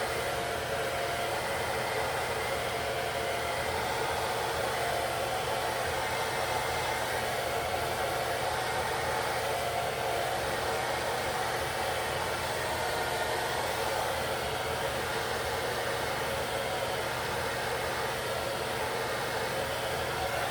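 Handheld hair dryer blowing steadily, drying the lace wig adhesive so the lace sets flat against the skin.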